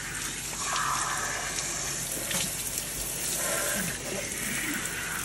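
Kitchen sink's pull-down faucet sprayer running steadily, its water spraying over a capuchin monkey's wet fur and a person's hands and splashing into the sink.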